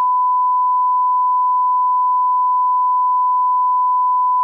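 A steady electronic beep: one pure, unchanging tone of medium pitch, held at a constant loud level.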